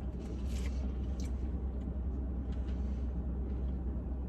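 Steady low rumble like a car cabin with the engine running, with a few faint clicks and smacks of eating, mostly in the first second or so.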